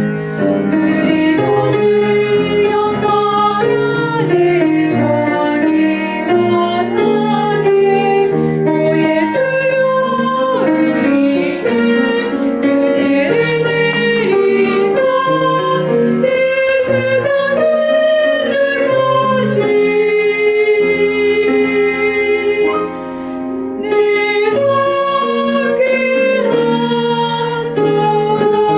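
Soprano singing a Korean sacred song with piano accompaniment, with a brief softer moment about three quarters of the way through.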